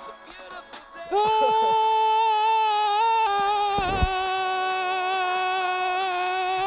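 A voice singing one long held note, starting about a second in and dipping slightly in pitch about two seconds later, with a brief low thump partway through.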